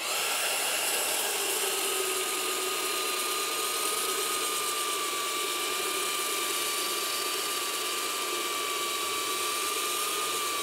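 Belt sander running steadily with a constant whine, sanding the curved saw-cut edge of the deck boards back to the marked line to take out the spots where the cut strayed.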